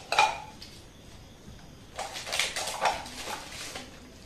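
Small glass and metal household items being handled: a sharp clink with a short ring right at the start, then a run of clatters and rustles from about two seconds in to nearly four.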